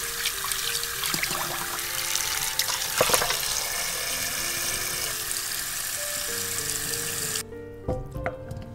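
Tap water running into a stainless steel bowl in the sink while hands rinse the fat off pieces of blanched duck, with a few sharp knocks about three seconds in. The water cuts off suddenly near the end, followed by soft knocks of duck pieces being placed in a pot, all under background music.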